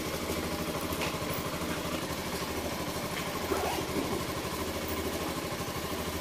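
A vehicle engine idling steadily with an even, rapid beat.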